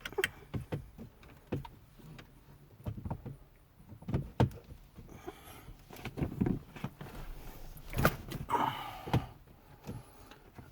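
Irregular sharp plastic clicks and knocks with short bursts of rustling, from handling the replacement head unit and plugging its wiring-harness connectors in the dash.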